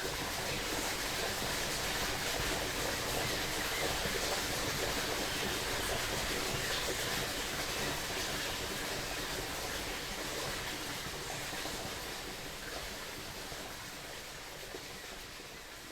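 Creek water running steadily, a constant rushing that slowly fades down over the last few seconds.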